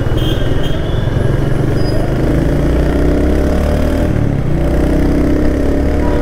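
Royal Enfield Hunter 350's single-cylinder engine running steadily while the bike rides along, its note rising and falling a little with the throttle.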